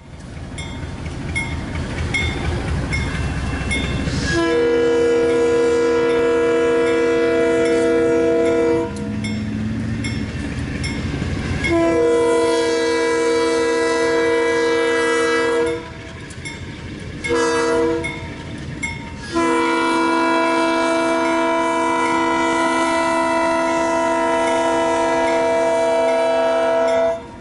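GE B23-7 diesel locomotive's multi-tone air horn sounding the grade crossing signal: long, long, short, long, the last blast held for about eight seconds. Before the horn starts, the approaching locomotive's rumble builds for about four seconds.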